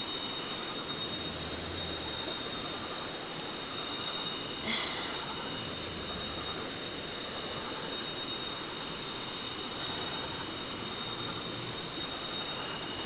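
Night chorus of rainforest insects: steady, high-pitched trilling over the constant rush of a nearby river, with a small brief sound about halfway through.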